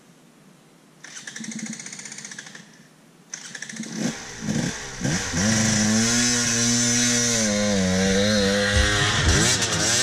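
KTM 300 two-stroke dirt bike climbing a steep trail: a short burst of throttle about a second in, then the engine builds and runs hard at a held, slightly wavering pitch, getting loud as the bike pulls up right beside the microphone near the end.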